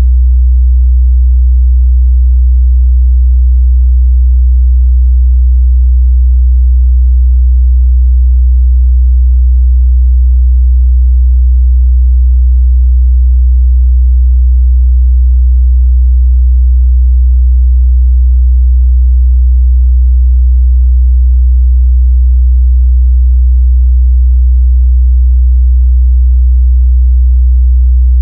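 A steady 62 Hz sine-wave test tone, a single low bass hum held at constant loudness.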